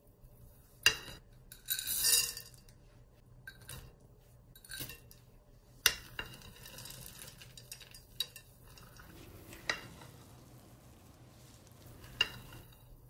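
A spatula stirring and folding thick cookie dough in a glass mixing bowl: soft scraping and squishing, with four sharp clinks against the glass that ring briefly. A short rustling rush comes about two seconds in.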